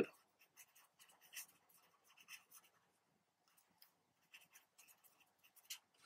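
Marker pen writing on paper: faint scratching strokes as words are hand-lettered.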